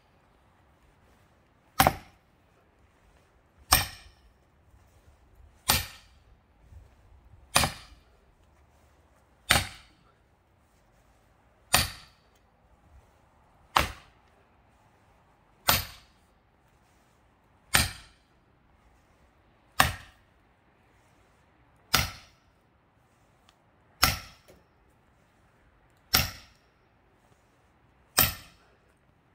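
A large sledgehammer striking the heads of two axes wedged into a thick pine log, one sharp ringing blow about every two seconds, fourteen in all, to drive the log apart.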